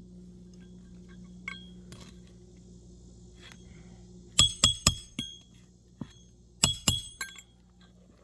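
Roof hatchet driving roofing nails into asphalt shingles: two quick runs of sharp, ringing metal strikes, about four just past halfway and three more about two seconds later.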